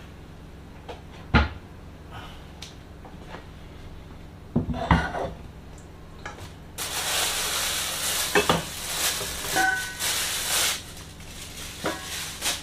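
Pots, bowls and utensils clattering at a kitchen counter, with a few sharp knocks. About seven seconds in, a steady rush of running tap water starts and lasts about four seconds, with metal clanks of a steel bowl in it.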